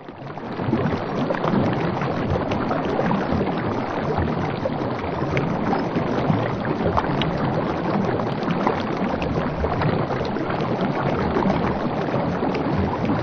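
Water washing and splashing close beside a coracle moving on a river: a steady rush with many small scattered splashes.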